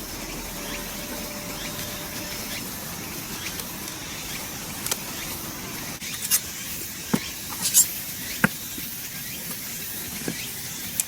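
Handling of a newly unpacked steel fire pit and its packaging: rustling and scraping, with sharp clicks and light knocks coming more often from about halfway through, over a steady background hiss.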